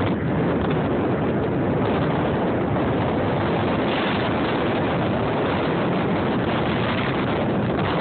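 Strong wind buffeting the phone's microphone, a steady rumbling roar, mixed with the rush of Niagara Falls.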